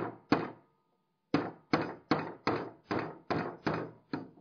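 Hammer tapping a nail held with pliers to drive the spring pin out of a splitboard binding's toe stay: about ten sharp taps, two at the start, then after a short pause a steady run of roughly three a second.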